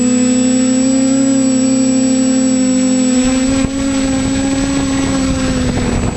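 Steady whine of the TBS Discovery Pro quadcopter's brushless motors and propellers as it descends to land, heard close up from its onboard camera. About halfway through, a rushing rumble of prop wash joins in as it nears the ground, with a single click soon after.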